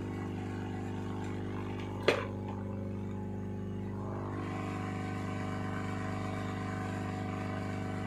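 Hot air rework gun blowing steadily with a constant hum, heating a phone's USB-C charging jack so that it can be lifted off its circuit board. A single sharp click about two seconds in.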